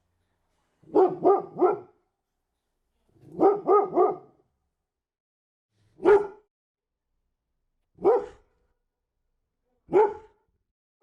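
A dog barking: two quick runs of three barks about one and three and a half seconds in, then single barks about two seconds apart, with dead silence between them.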